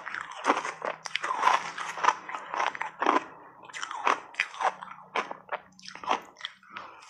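Shaved ice crunching: a spoon digging into a heap of shaved ice and big mouthfuls of ice being chewed, a quick, irregular run of crunches.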